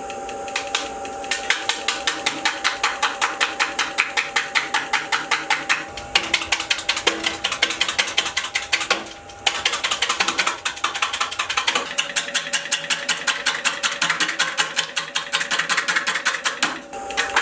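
Lathe gouge making an interrupted cut on an out-of-round tree-stump blank, knocking rapidly and evenly, about five or six times a second, as the uneven wood strikes the tool edge each turn. The knocking breaks off briefly twice, about nine seconds in and near the end.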